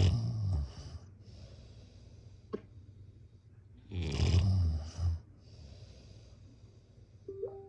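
A sleeper snoring: a loud, low snore at the start and again about four seconds in, each about a second long and followed by a quieter breathy exhale. A faint click comes midway and a brief faint tone near the end.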